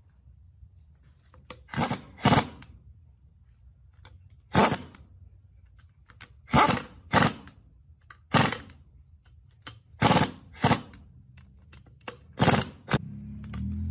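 Pneumatic impact wrench driving the bolts of a gearbox bearing-cover flange in short bursts, about ten quick rattles, mostly in pairs.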